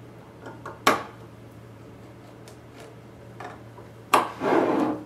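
Hands fitting a timing belt around the pulleys and shafts of a metal gantry, with parts handled along the way. There is a sharp click about a second in and a few faint ticks, then near the end another sharp click and a brief rubbing noise.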